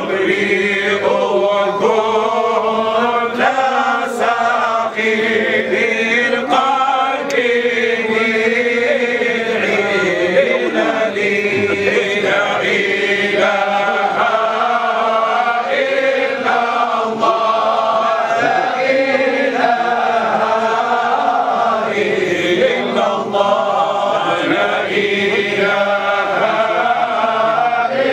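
A group of men chanting a Sufi devotional poem (qasida) together, steady and without instruments.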